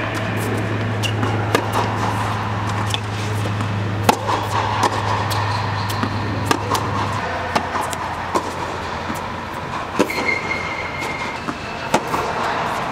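Tennis rally on a hard court: sharp pops of the ball off racket strings and bounces, about one a second, over a steady low hum that stops about seven seconds in.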